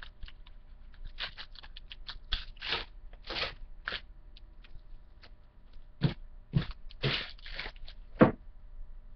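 Trading-card pack wrappers crinkling and cards rustling as they are handled, in an irregular run of short crackly bursts, the loudest about eight seconds in.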